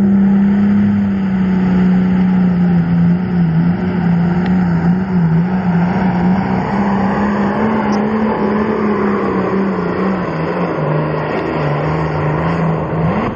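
Modified diesel farm tractor at full throttle pulling a weight-transfer sled. The engine note is loud and steady, wavers in pitch as it goes down the track, sits lower for the last few seconds, then falls away at the very end.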